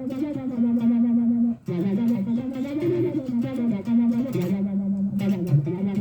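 Electric guitar played through a Donner Arena 2000 multi-effects processor: sustained notes with a couple of string bends, broken off briefly about a second and a half in.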